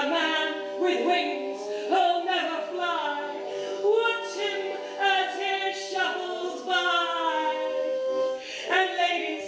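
Vocal music: singing voices holding long notes that slide in pitch, over a steady held drone.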